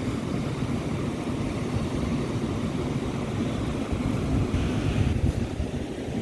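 Wind rumbling on the microphone over waves washing on a sandy beach, with a stronger gust about four to five seconds in.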